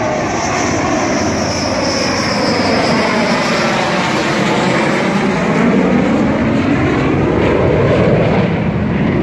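Dassault Rafale fighter jet flying low overhead on its landing approach, its twin turbofan engines making a loud, continuous jet noise. The tone slides lower and then higher again as the aircraft passes.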